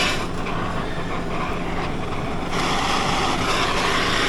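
Oxy-fuel cutting torch hissing steadily while skimming leftover metal off a car wheel rim with a light flow of cutting oxygen. The hiss grows louder and brighter about two and a half seconds in.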